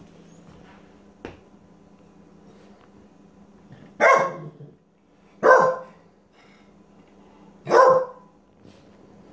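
Rat terrier giving three short, loud barks a second or two apart: demand barking, the dog insisting on something she wants.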